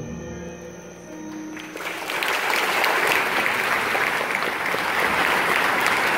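The last held notes of the song's accompaniment fade. Less than two seconds in, a theatre audience breaks into applause that swells and then holds steady.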